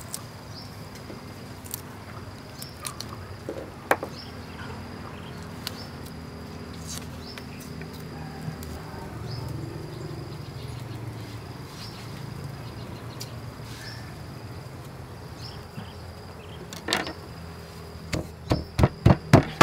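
Insects chirping steadily, with a few small knife clicks while garlic is peeled. Near the end a wooden pestle starts pounding in a mortar, about three loud thumps a second.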